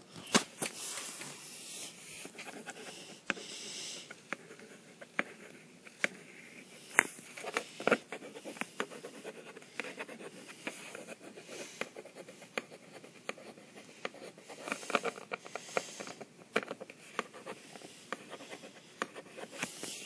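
Handwriting: a pencil scratching in quick strokes, with many short sharp taps and clicks as it hits and lifts off the writing surface.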